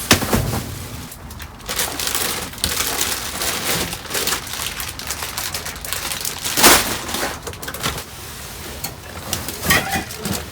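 Dumpster contents being rummaged through: plastic bags and packaging rustling and crunching, with a sharp knock at the start and louder crashes about two-thirds of the way through and near the end.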